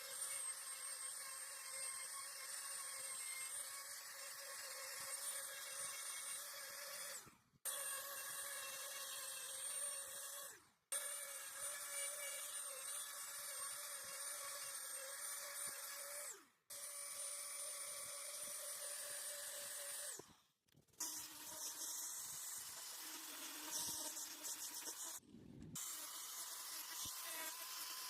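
Small electric power tool running with a steady whine. It stops abruptly for a moment about five times before running again.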